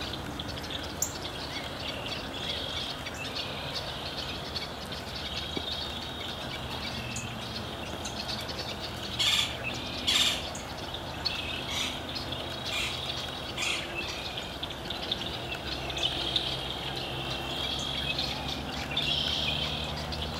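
Small birds chirping and calling over steady outdoor ambience, with two louder sharp sounds about nine and ten seconds in and a faint low hum underneath.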